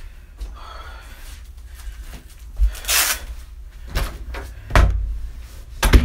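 A handful of knocks and thumps, the loudest near five seconds in and a quick double knock at the end, with a short rasping rustle about three seconds in.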